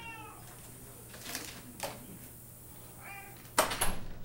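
House cats meowing: one meow at the very start and a shorter one about three seconds in, with faint clicks between and a cluster of sharp knocks near the end, the loudest sound.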